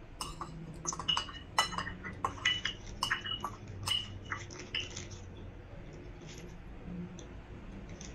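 Metal spoon and fork clinking against a ceramic bowl during eating, a quick run of light clinks that thins out after about five seconds.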